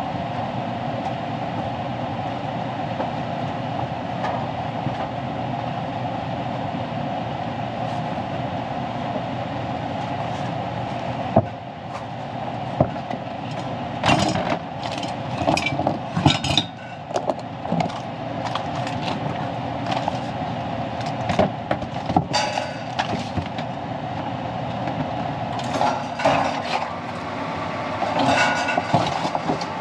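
Carrier gas furnace running with its newly replaced inducer fan motor: a steady whirring hum. From about a third of the way in, scattered metal clicks and clinks come in short clusters over the hum.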